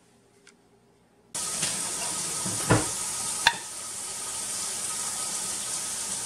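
Over a steady hiss, a dull knock and then, about a second later, a sharp snap. This is the metal snap lid on a hot canning jar of dill pickles popping down as it cools, the sign that the jar has sealed.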